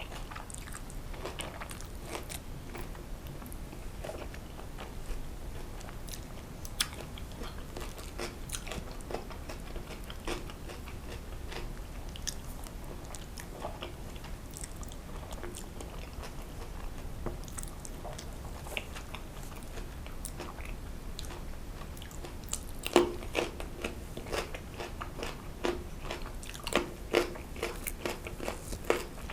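Close-miked chewing and mouth sounds of someone eating, with many short wet clicks and bites that grow louder and more frequent in the last few seconds.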